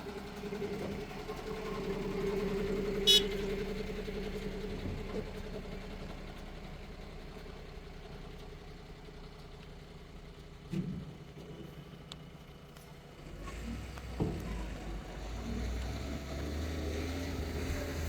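JCB earth-moving machine's diesel engine running steadily, with a sharp metallic clink about three seconds in and a few duller knocks later. A deeper low rumble joins in for the last few seconds.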